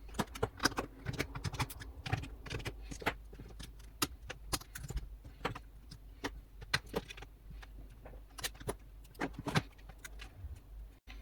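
Irregular light clicks and taps of small repair tools and parts on a tablet being taken apart.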